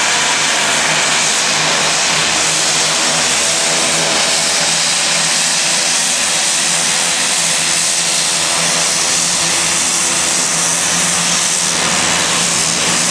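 Dornier 228 twin-turboprop airplane with both engines running steadily at taxi power: a constant turbine hiss and propeller drone as it taxis and turns at the runway end to line up for take-off.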